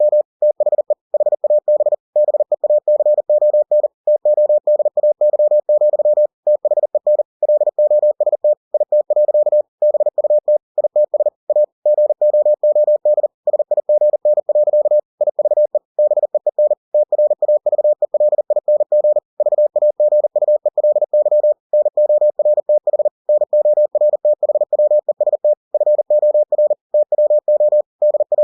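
Computer-generated Morse code at 40 words per minute: a single steady mid-pitched beep keyed on and off in rapid dots and dashes, with short breaks between words.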